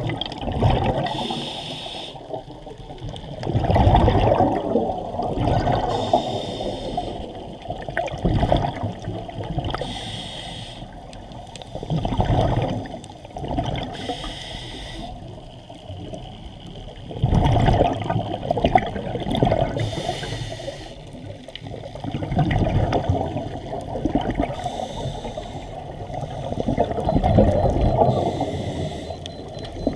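Scuba diver breathing through a regulator underwater: a short hiss on each inhale, then a rush of exhaled bubbles, repeating about every four to five seconds.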